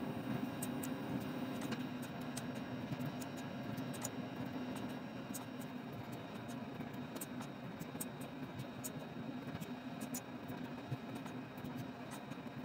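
Faint computer-mouse clicks at irregular intervals over a steady low hum.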